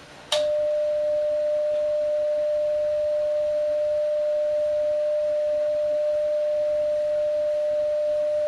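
Steady single-pitch CW sidetone of about 600 Hz, beginning with a click a moment in. It is the transmitter held key-down to drive a Heathkit SB-220 linear amplifier while the amplifier's plate and load are tuned.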